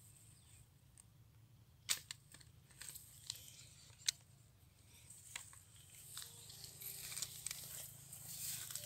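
Faint rustling and crackling of dry grass being brushed and handled, with a few sharp snaps about two and four seconds in; the rustling grows louder over the last few seconds.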